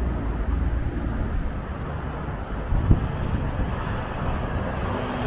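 Urban road traffic noise with wind rumbling on the microphone, a steady low din, and a single brief knock about three seconds in.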